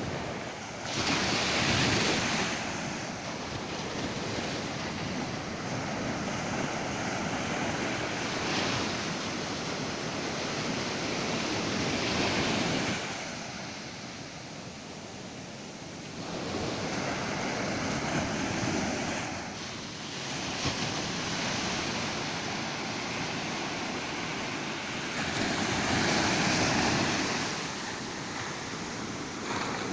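Ocean surf on a beach: waves breaking and washing in, swelling and ebbing in slow surges, the loudest about a second in and near the end.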